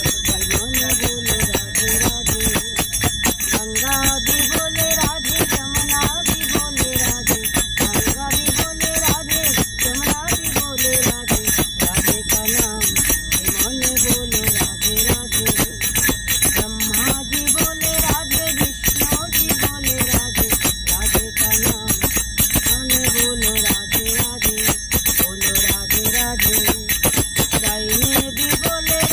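A woman singing a devotional bhajan, accompanied by a fast, steady clash of small brass hand cymbals (manjira) that ring on between strokes.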